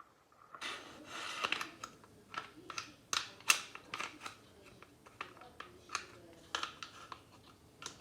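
Glock 17 replica air pistol being handled: a quick run of irregular mechanical clicks and rattles with a short rustle near the start and one sharper, louder click about three and a half seconds in.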